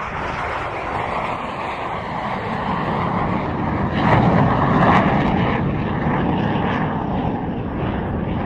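F-86 Sabre's turbojet engine passing down the airshow line, a steady rushing roar that swells to its loudest about four to five seconds in and then eases off slightly.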